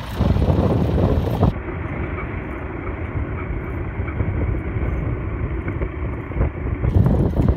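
The International 210 diesel engine of a 1990 International Acco 2250D fire truck running with a steady low rumble. The sound turns duller about a second and a half in and brightens again near the end.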